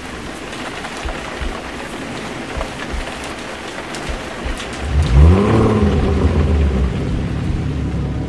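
Soundtrack rain effect, a steady hiss of rain, then about five seconds in a loud deep swell whose pitch rises and falls back, settling into a steady low drone.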